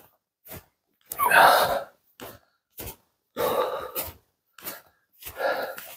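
A walking hiker's heavy breaths, one about every two seconds, with short crunches of footsteps on snow between them.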